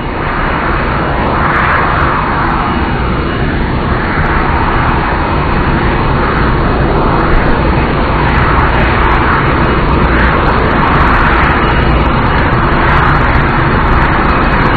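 Jet engines of the Boeing 747 Shuttle Carrier Aircraft NASA 905, a loud steady rush from its four turbofans. The tone sweeps slowly up and down throughout.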